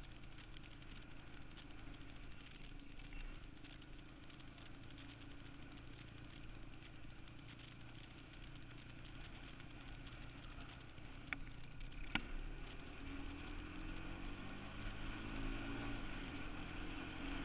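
Quad Runner 160 ATV engine running at low speed, its pitch rising over the last few seconds as it picks up. Two sharp clicks sound about two-thirds of the way through.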